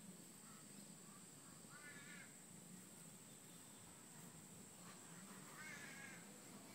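Two short, faint animal calls about four seconds apart, over a steady faint high-pitched whine.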